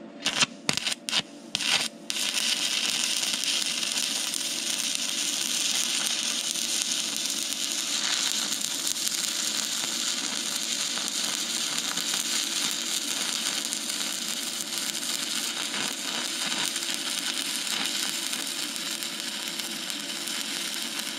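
Stick welding arc from a Migatronic Focus Stick 160 E PFC welder with 2 mm OK 48 (7018) electrodes, welding a steel tab. A few short sharp snaps as the arc is struck in the first two seconds, then a steady hiss as the arc holds.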